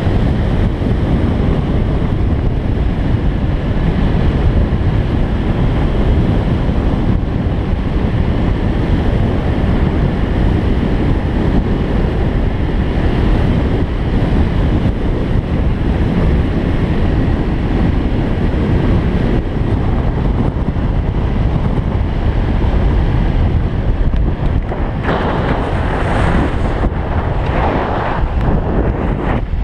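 Wind buffeting the microphone: a loud, steady low rumbling noise, with a brighter rushing hiss joining near the end.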